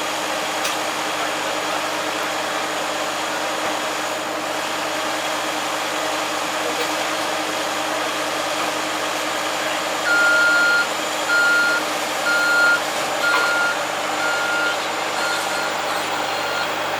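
Machine engine running steadily. About two-thirds of the way through, a backup alarm starts beeping at an even pace of about one beep a second.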